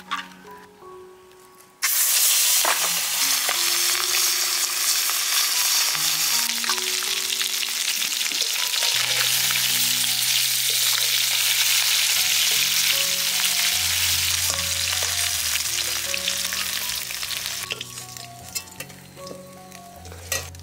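Turmeric-coated magur catfish pieces hitting hot oil in a steel kadai, bursting into a loud sizzle about two seconds in and frying steadily, with the spatula stirring and scraping. The sizzle dies down near the end.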